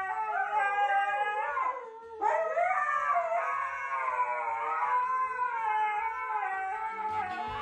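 Two huskies howling together, their long wavering howls overlapping, with a short break about two seconds in.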